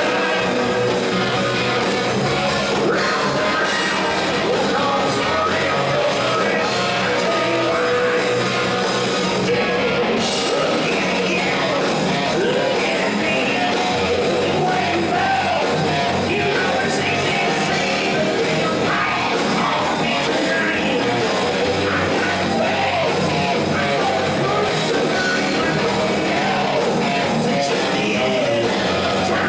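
Rock band playing live: sung vocals over electric guitar, bass guitar and a drum kit, loud and steady throughout.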